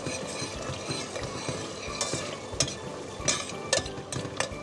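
Tomato paste sauce sizzling and bubbling in a stainless steel pot while a metal spoon stirs it, with several sharp clinks of the spoon against the pot in the second half.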